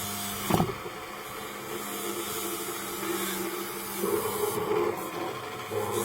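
Small electric motor of a homemade sandal-cutting machine running with a steady hum, with a single sharp knock about half a second in. The tone of the motor changes about four seconds in and again near the end.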